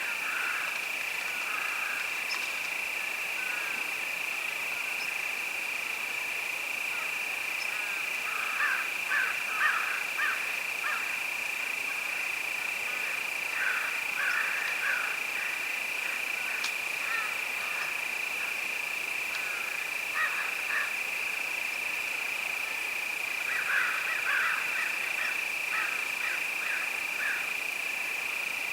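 Crickets chirping in a steady high-pitched trill, with clusters of short, rapid, lower calls from another animal coming and going every few seconds, loudest about ten seconds in and again near the end.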